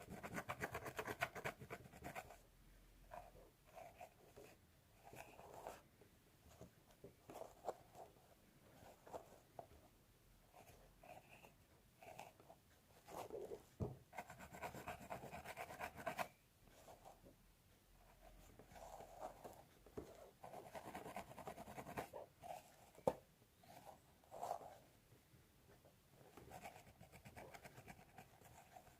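Close-miked fingernails scratching through hair and over a scalp, coming in irregular bursts that last from a moment to a few seconds, with quieter gaps between.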